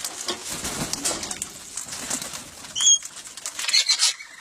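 Parrots calling while being hand-fed: scattered short calls, a brief sharp chirp about three seconds in, and loud harsh squawks near the end.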